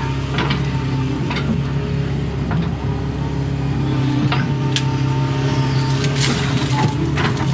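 Doosan excavator's diesel engine running steadily under work, with scattered sharp clicks and knocks from the machine working its bucket and thumb.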